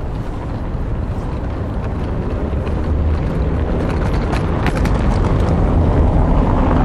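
City traffic rumble, a deep steady noise that grows gradually louder as a vehicle draws near, with a few light clicks in the middle.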